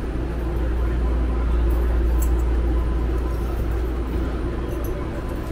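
Steady low rumble and faint hum of BART station background noise, with no distinct event standing out.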